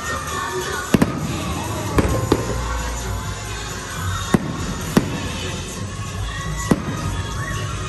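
Aerial fireworks bursting in a series of sharp bangs, about seven, irregularly spaced, over loud show music that plays throughout.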